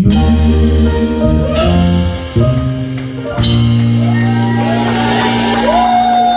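Live rock band playing the song's closing crescendo: the full band crashes in all at once, with two more cymbal crashes about a second and a half apart and changing chords. It then settles on a held chord while a lead guitar bends and slides notes above it.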